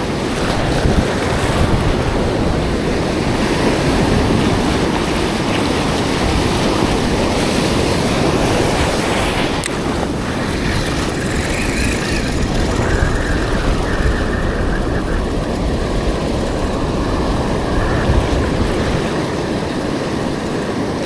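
Surf breaking and washing on an ocean beach, with wind rumbling on the microphone.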